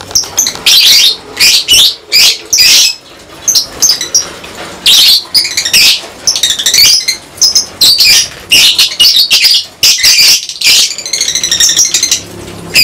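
A colony of lovebirds calling: rapid, shrill chattering and squawks, one call after another with only brief gaps.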